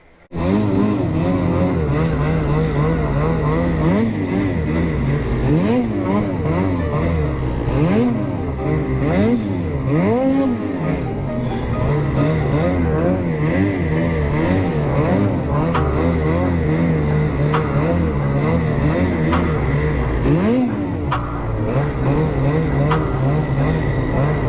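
Ski-Doo 850 two-stroke snowmobile engine running under way, its revs rising and falling again and again as the throttle is worked.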